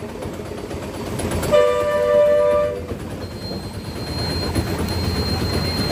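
A two-tone vehicle horn sounds for about a second, then the auto-rickshaw's engine is started and keeps running with a low rumble that grows louder.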